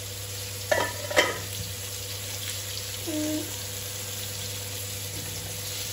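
Fish frying in oil in a pan on a gas stove, a steady sizzle, with two brief sharp sounds about a second in.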